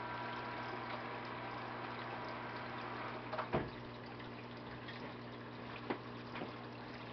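Aquarium algae scrubber's small water pump humming steadily while water runs and trickles through its drain. There is a brief knock about three and a half seconds in and a faint click near the end.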